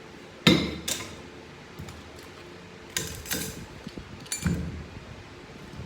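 Metal parts of a ZF 6HP21 automatic transmission knocking and clinking on the workbench as it is taken apart: a sharp metallic clank about half a second in, then a few more clanks and clinks around three and four and a half seconds.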